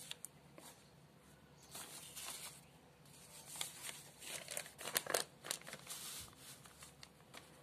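Paper rustling and crinkling as a notebook page is folded back and handled, in short scattered rustles that are loudest about five seconds in.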